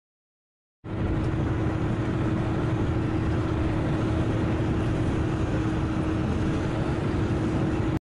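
A vehicle engine running steadily with a constant hum and low rumble, cutting in abruptly about a second in.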